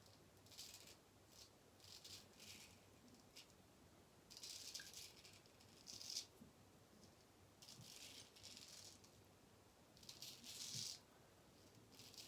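Freshly honed straight razor cutting through lathered whiskers: a series of short, faint crackling scrapes, about ten strokes with brief pauses between them.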